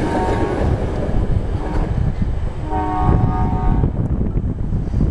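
Amtrak passenger train rumbling away into the distance, its horn sounding a chord for about a second midway through.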